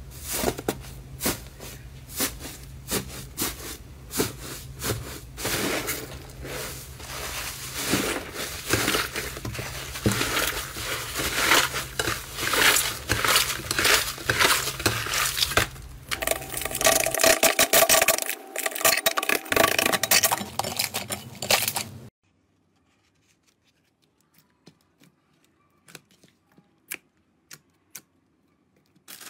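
Hands squeezing, tearing and kneading a crumbly foam slime, making dense, irregular crackling and crunching. About 22 seconds in it cuts to much quieter, occasional small sticky pops as clear slime is pressed.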